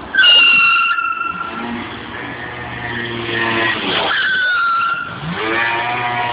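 Yamaha Aerox scooter's rear tyre squealing on the tarmac as the wheel is spun for a burnout or drift: a loud high-pitched squeal just after the start, the loudest sound here, and a second, shorter one about four seconds in. The scooter's engine runs underneath throughout and revs up near the end.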